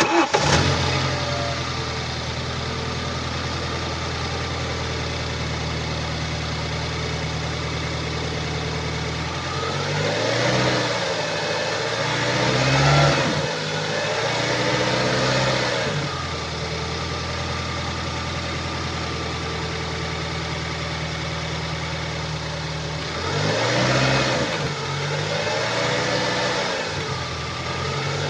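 BMW 116i (E81) 2.0-litre four-cylinder petrol engine (N43B20A) starting up, then idling and revved in short blips, in two spells about ten seconds in and again near the end. The engine noise comes from a failed connecting-rod bearing on the crankshaft.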